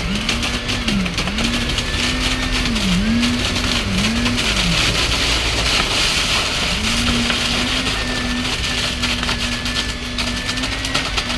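Concrete pump truck's diesel engine running under load while pumping. Its pitch rises and dips about once a second for several seconds, then holds steady, over a constant hiss.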